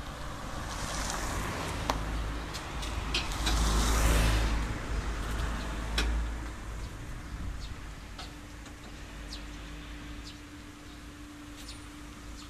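An engine running with a low rumble that grows louder to a peak about four seconds in and then eases off, with scattered sharp clicks and a steady hum in the last few seconds.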